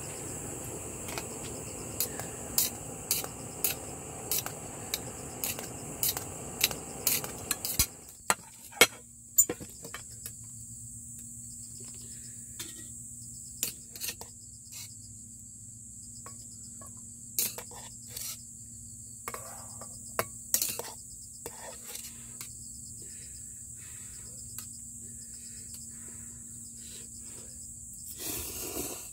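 Gas camp stove burner hissing under a pot, cut off abruptly about eight seconds in, with metal chopsticks clinking against the metal pot as its contents are stirred. Crickets chirp steadily throughout.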